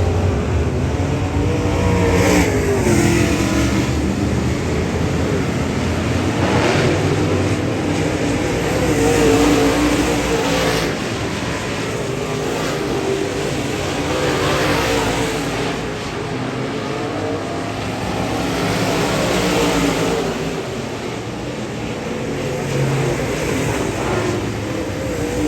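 Modified race cars' engines running on the track at speed, rising and falling in pitch as the cars accelerate and go by, again and again.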